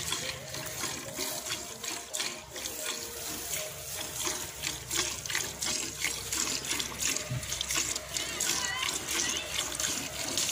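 Milk from a water buffalo being hand-milked squirts into a steel bucket already holding milk, one short splashing stroke after another in a steady rhythm.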